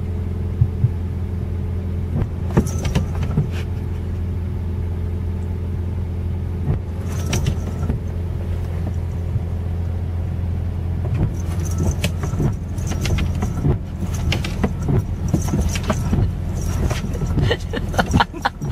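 Steady low hum of a car's running engine heard inside the cabin, with scattered clicks and soft knocks. Near the end the windshield wipers sweep across the wet glass.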